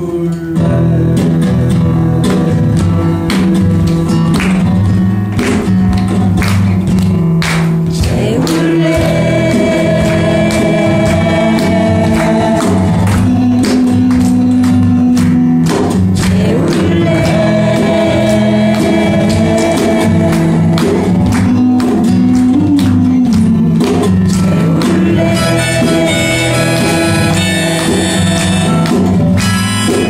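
Acoustic guitar strummed in a steady rhythm while a neck-held harmonica plays long held melody notes, a folk-song instrumental passage.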